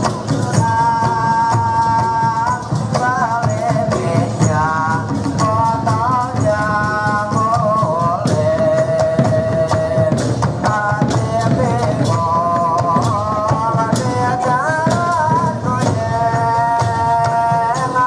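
Live Dolalak dance music: a sung melody of long held notes sliding between pitches, over quick, busy frame-drum and drum beats with jingling percussion.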